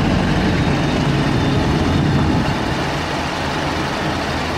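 Heavy diesel engine of a mobile crane idling steadily, a low even rumble that eases slightly about halfway through.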